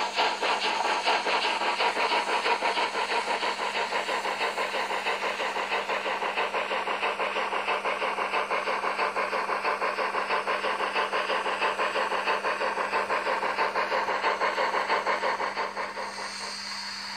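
Sound decoder of a TT-scale BR 95 model steam locomotive playing a steam exhaust chuff through the model's small speaker. The chuffs come fast and even, and die away near the end.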